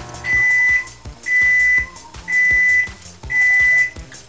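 An electronic beeper sounding four times, about once a second, each beep a loud, steady high tone about half a second long.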